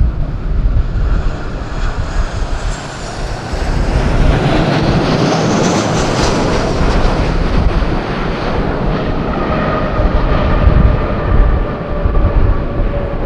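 Ryanair Boeing 737 twin jet engines passing close, swelling to a peak about a third of the way in, then a whine that slowly falls in pitch. Wind buffets the microphone throughout.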